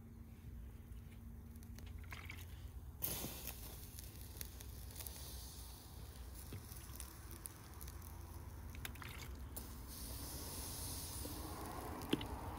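A wet hissing noise that starts suddenly about three seconds in, with scattered small clicks.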